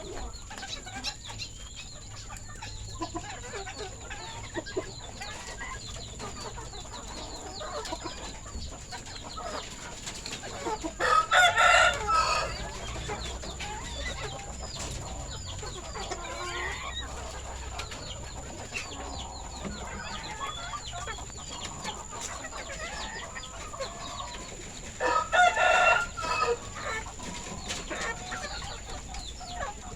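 Village chickens clucking steadily, with a kampung rooster crowing twice, loudly: once about a third of the way in and once near the end. A faint steady high-pitched tone runs underneath.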